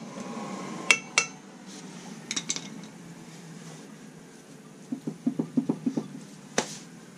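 Metal clinks and knocks as a rusty rear brake drum is rocked and turned by hand on its hub: two sharp ringing clinks about a second in, a quick run of dull knocks around five seconds in, and one sharp clank near the end.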